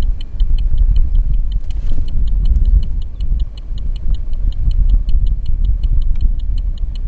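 Car's indicator ticking rapidly and evenly, about four ticks a second, over a heavy low rumble of wind and driving noise inside the car.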